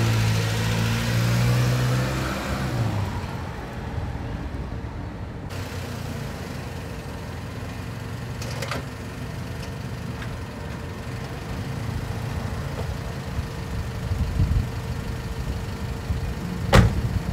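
Honda Civic sedan's four-cylinder engine running as the car pulls in, its note dropping about three seconds in as it slows to a stop, then idling steadily. A sharp knock near the end.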